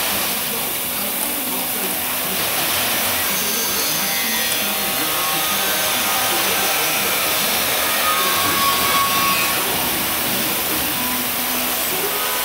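Steady loud hiss and drone of machinery in a concrete casting hall, with faint short whistling tones above it.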